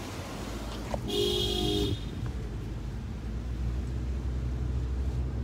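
A car horn gives one short toot, under a second long, about a second in. After it comes the low, steady rumble of engine and road noise heard from inside a moving car's cabin.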